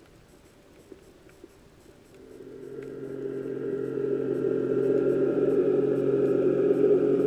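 Faint clicks and hiss of the sea, then a motorboat's engine and propeller heard through the water: a steady droning hum that starts about two seconds in, swells over a few seconds as the boat approaches, and then holds loud.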